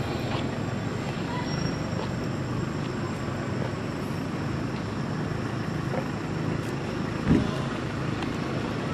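Steady low rumbling background noise, with one short thump about seven seconds in.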